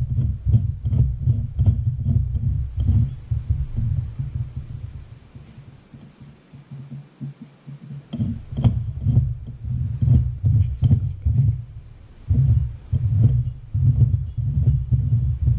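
Bobcat skid-steer cooling-fan angle-drive gearbox being spun by hand on a bench, a low rhythmic rumble of about three or four pulses a second. It stops about five seconds in and starts again near eight seconds. He is spinning it to work freshly added gear oil through the gears.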